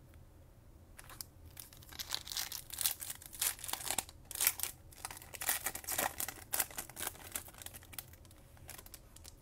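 Foil trading-card pack wrapper being torn open and crinkled in the hands: a dense string of short, sharp crackles.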